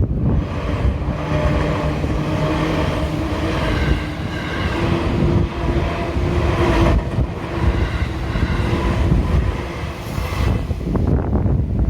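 Seibu Haijima Line electric train passing over the level crossing, its wheel and motor noise loud from the start and carrying a few steady humming tones. It dies away about eleven seconds in, leaving wind on the microphone.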